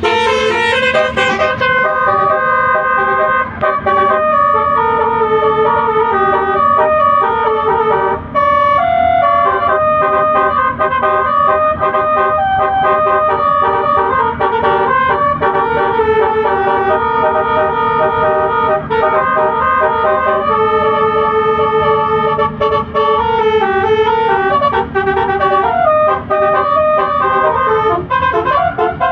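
Bus telolet horn playing a melody: several sustained horn tones stepping from note to note, with a few short breaks.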